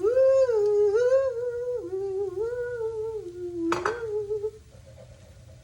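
A woman humming a slow tune without words, holding notes and sliding between them, with a single clink of a utensil near the end.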